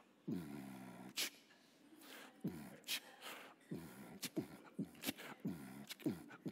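A man vocally imitating the bass thump of a car stereo: a string of short hummed 'mm' booms, each falling in pitch, at an uneven beat, with a few sharp mouth clicks between them.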